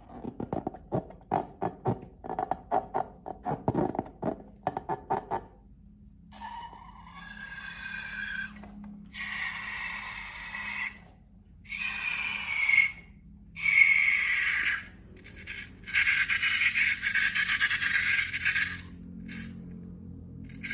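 Slime handled in quick squishy clicks for about five seconds, then long scraping, squeaky strokes of rubber balloon against slime or rubber, separated by short pauses.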